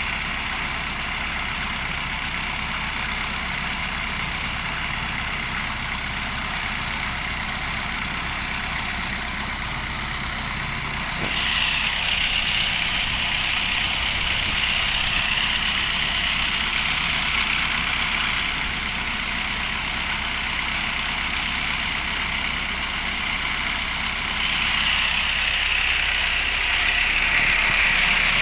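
Engine running steadily during a vehicle recovery, with a louder higher-pitched whine that comes in suddenly about eleven seconds in, eases off, and returns near the end.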